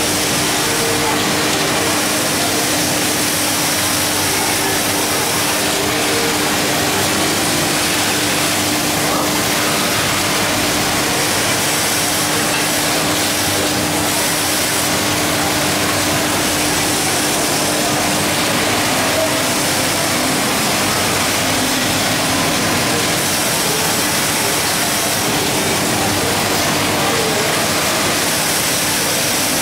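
Steady machinery din of a garment workshop: continuous noise with a steady hum that fades out about halfway through.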